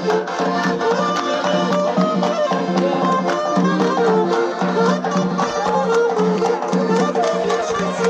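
Live Georgian folk dance music: accordions and saxophone play a wavering melody over a held low note, with a steady drum beat.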